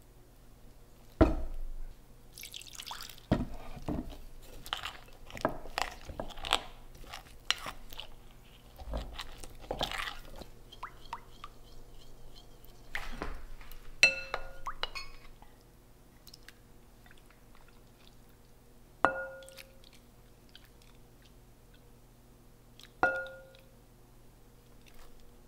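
Potato starch and water being stirred in a glass mixing bowl: a run of short squishing and scraping strokes after a couple of knocks at the start. Later come three sharp clinks, each leaving the glass bowl ringing.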